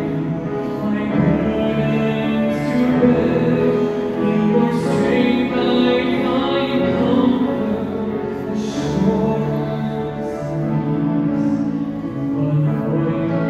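A slow worship song performed live: sustained singing over piano, keyboard and acoustic guitar accompaniment.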